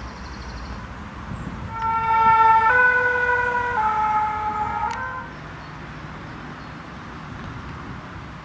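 A two-tone emergency-vehicle siren sounds for about three seconds, starting about two seconds in. It steps back and forth between two pitches about once a second, then stops, over a steady background of traffic noise.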